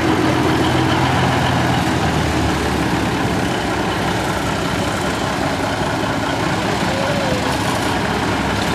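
International Transtar cab-over semi tractor's engine running as the truck pulls away at low speed; a steady engine tone in the first couple of seconds fades into a more even rumble as it moves off.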